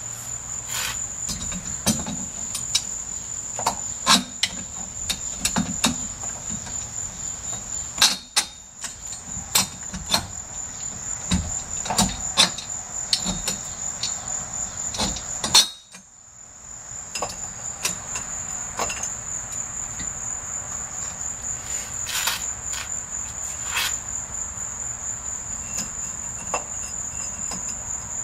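A steady, high, pulsing insect buzz, with scattered clicks and knocks from wheels being slid along a metal axle rod and set into a steel frame. All sound drops out briefly about halfway through, then the buzz and handling resume.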